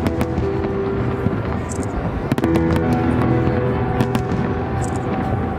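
Festive fireworks salute: many sharp bangs and cracks going off irregularly, over loud music with long held notes.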